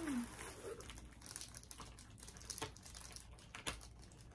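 Small plastic packaging crinkling with scattered light clicks as pins are handled and unwrapped. A brief hummed vocal sound comes right at the start.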